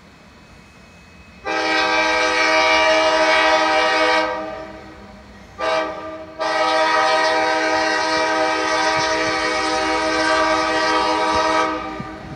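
Diesel freight locomotive air horn blowing for a grade crossing: a long blast, a short blast, then another long blast, each a steady multi-note chord. The locomotive is an EMD GP38-series unit.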